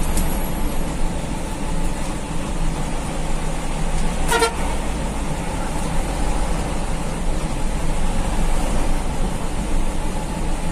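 Mitsubishi-engined bus running on the road, a steady engine and road rumble heard from inside the cabin, with a short vehicle-horn toot about four seconds in.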